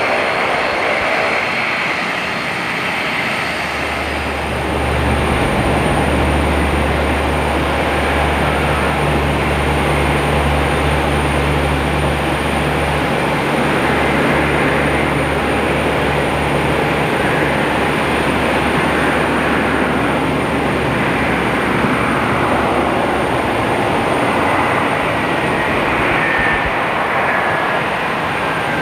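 GE CF34 turbofan engines of an Embraer E170 regional jet on approach and landing, a steady rushing noise with a strong low rumble for several seconds and a faint whine falling in pitch near the end. At the very start, the steady tones of a DHC-8 Q400 turboprop's propellers fade out.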